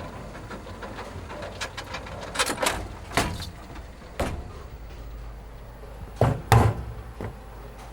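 A series of knocks and bangs, irregularly spaced over a steady low hum. The two loudest come close together in the last third.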